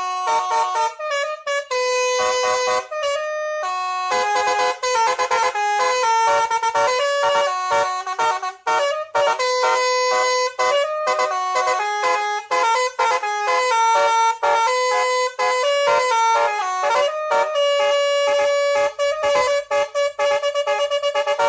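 Nine-trumpet musical car horn with a nine-note module playing a melody, with quick short notes and some longer held ones.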